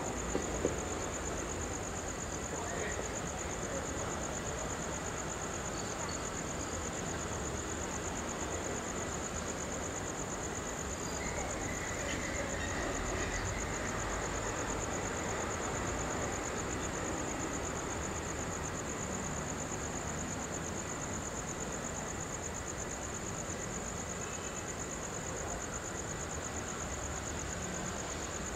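Crickets trilling steadily in one continuous high-pitched band, over a low, even background rumble.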